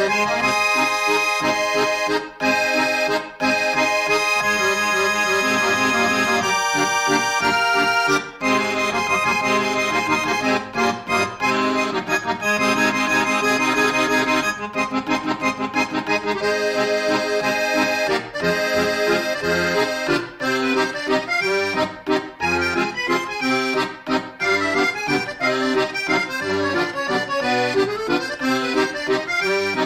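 Background music led by an accordion, in a traditional folk style, with sustained chords over a steady beat.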